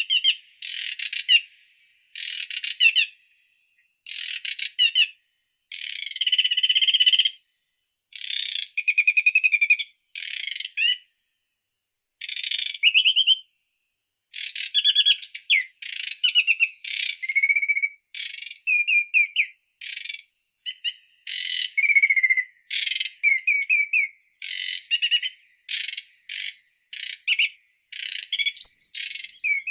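A songbird singing a long series of short trilled phrases, one every second or two at first and more quickly in the second half, with a higher sweeping call near the end. There is no background sound between the phrases.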